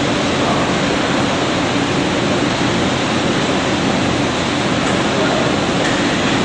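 Steady machine-shop background noise: an even rushing hiss with a faint low hum underneath.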